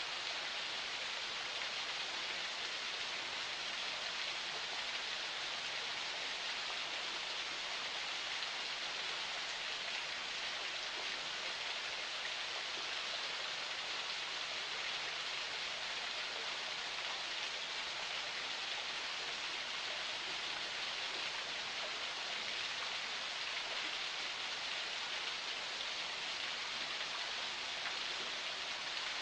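Forest spring water flowing, a steady, unbroken rush of running water.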